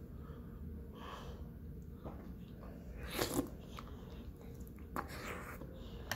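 Close-miked mouth noises of eating cheesy chicken enchilada: a short, noisy intake about three seconds in as a forkful goes into the mouth, another about five seconds in, then soft chewing.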